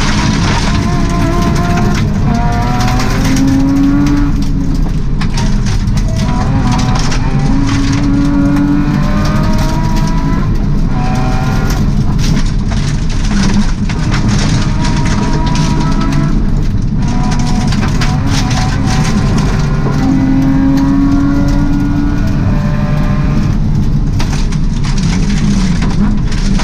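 Subaru rally car's flat-four engine heard from inside the cabin, revving hard and climbing in pitch, then dropping back at each gear change, over and over. A steady rumble of the tyres on the gravel road runs underneath.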